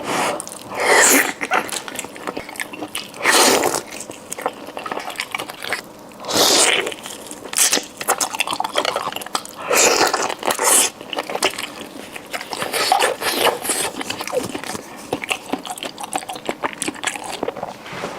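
Close-miked eating: steady wet chewing and mouth clicks, broken by about five louder, short bursts of eating noise.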